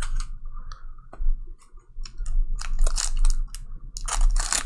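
Foil wrapper of a trading-card pack crinkling and tearing as it is opened by hand, in irregular rustling bursts that grow denser and louder over the last couple of seconds.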